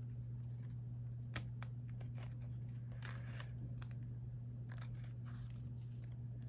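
Pokémon trading cards being handled and flicked through: faint rustles and small clicks, with one sharper click about a second and a half in, over a steady low hum.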